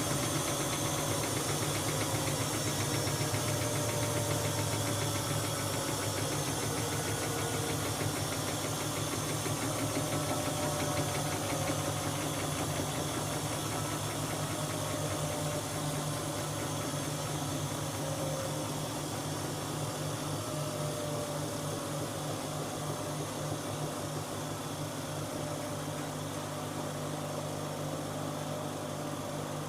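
Siemens Siwamat washing machine running: a steady motor and drum hum with faint whining tones that slowly drop in pitch. The sound gradually grows quieter.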